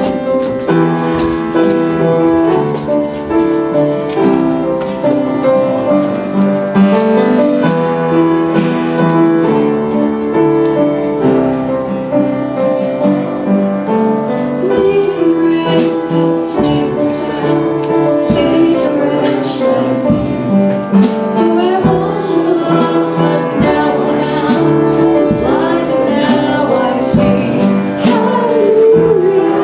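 Live worship music: sustained keyboard chords with singing, the sung melody coming through more strongly about halfway in, along with sharp percussion strokes.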